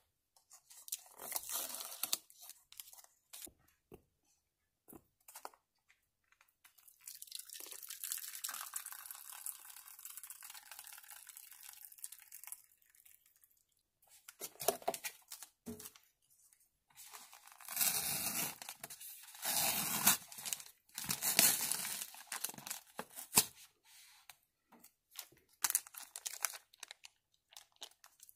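Plastic instant-noodle packaging being handled: cup lid film and seasoning sachets crinkling and tearing in irregular bursts, densest in the second half, with a steady hiss of several seconds in the middle.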